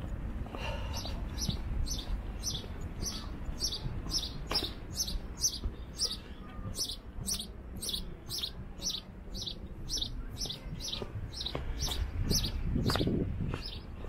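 A small bird chirping over and over, short high chirps about two a second, over a low rumble.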